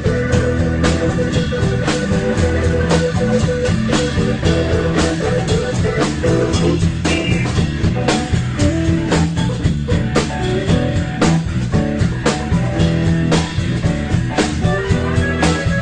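Band music: guitar over a drum kit with a steady beat.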